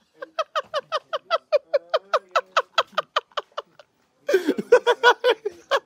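A person laughing in a long run of quick, high-pitched pulses, about six a second, then a short pause and a louder burst of laughter a little over four seconds in.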